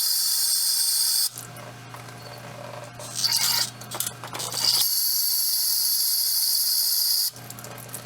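Aerosol can of brake cleaner spraying in bursts: a long spray that stops about a second in, a short one around three seconds, and another of about two and a half seconds near the end. It is flushing rust and gunk out of the water-separator port of a diesel fuel filter housing, gunk that can set off the water-in-fuel sensor.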